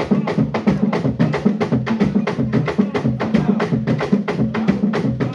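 Traditional Central African drumming for a dance ensemble: a fast, steady beat of several drums, about five or six strokes a second.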